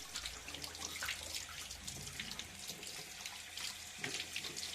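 Water running and splashing steadily, like a tap pouring into a sink or basin.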